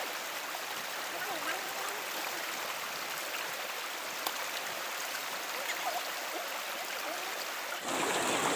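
Steady rush of flowing stream water, with a few faint small ticks over it; near the end it steps up louder and brighter.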